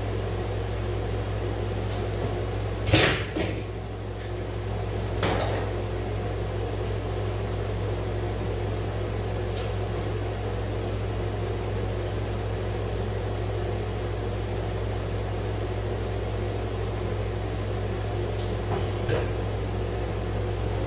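Steady hum of a running window air conditioner, with a few sharp clicks and knocks from electrical cable and a metal outlet box being handled; the loudest knock comes about three seconds in.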